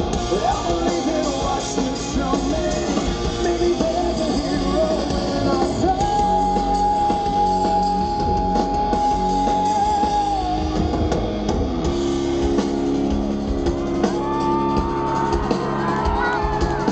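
Live rock band with a male lead singer on electric guitar and drums. About six seconds in he holds one long sung note for roughly four seconds, and near the end he holds another, slightly higher one.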